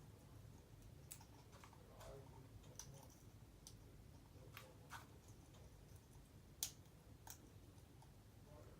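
African grey parrot making faint, scattered clicking sounds, with one sharper click about two-thirds of the way through.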